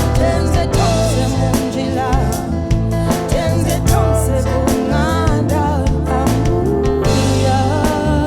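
Afro-soul band playing live, with a woman's voice singing a melody over a full accompaniment with a steady beat.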